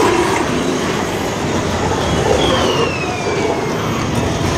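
Loud, steady rumbling din of a haunted house's sound effects and soundscape, with a brief falling whistle-like tone about two and a half seconds in.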